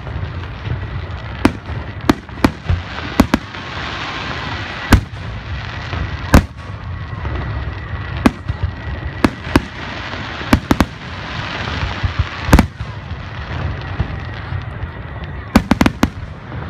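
Aerial fireworks shells bursting overhead in a display, about twenty sharp bangs at irregular intervals, some in quick clusters, over a continuous rush of noise.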